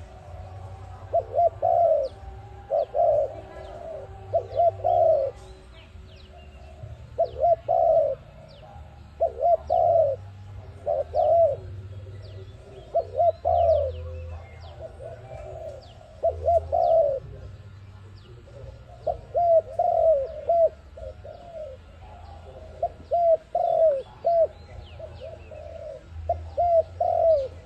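Dove cooing over and over: short phrases of a few quick coos, repeated every second or two, with faint high chirps of small birds behind.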